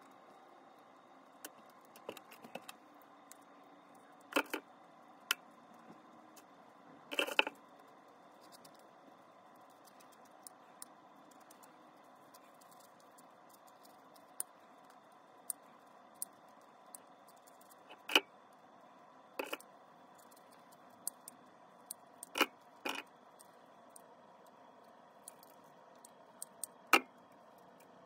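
Irregular short clicks and knocks of hand tools and material being handled and set down: scissors, a plastic spreader and a wooden stick against the work. Underneath runs a faint steady hum.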